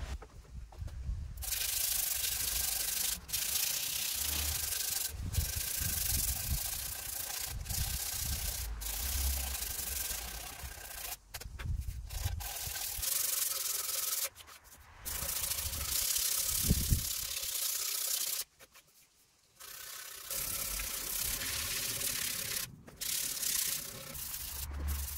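Sandpaper rubbed by hand along a wooden axe handle: a steady hiss of sanding starting about a second in, stopping briefly several times, with a longer pause about three quarters of the way through.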